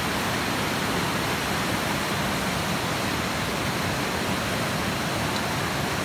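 Steady, even rushing noise that holds at one level throughout.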